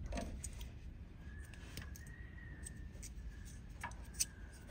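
Faint scattered clicks and handling noise as a wheel speed sensor lead and its plastic retaining clip are worked into place, with a sharper click about four seconds in. A faint steady high whine runs underneath.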